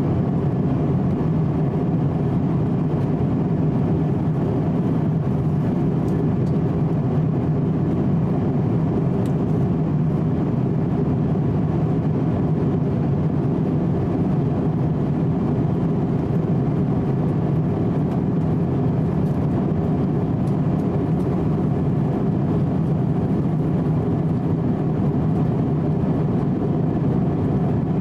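Steady in-flight cabin drone of an Airbus A350-900, heard from a window seat beside its Rolls-Royce Trent XWB turbofan: engine and airflow noise with a low hum, unchanging throughout.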